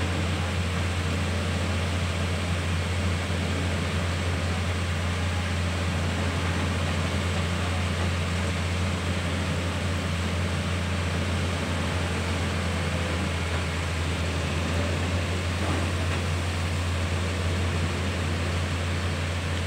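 Komatsu PC210 LC crawler excavator's diesel engine running steadily as the machine drives off a flatbed truck, a constant low hum with no change in pitch.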